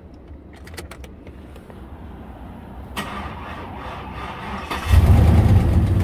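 2004 Chevy Silverado's 5.3-litre V8 being started: a click about three seconds in, then the engine catches just before five seconds and runs, much louder. The engine is running with no oil in it, and the mechanic suspects it is seizing up.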